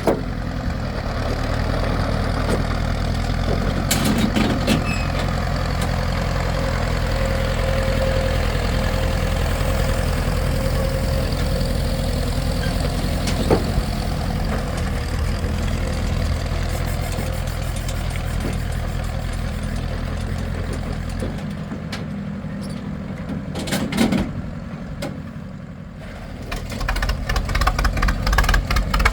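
An engine running steadily with a low hum. It quietens about three quarters of the way through, and then a faster, pulsing engine beat builds near the end.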